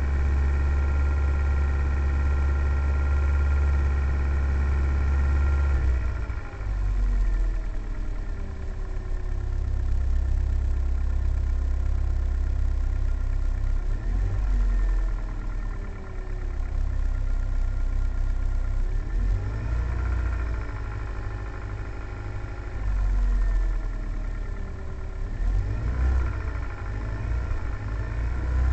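Hyundai Solaris 1.4-litre four-cylinder petrol engine running while it warms up from a cold start, the condition in which the owner hears a knock that the dealer calls normal operation. The engine note holds steady, then about six seconds in it shifts and rises and falls a few times.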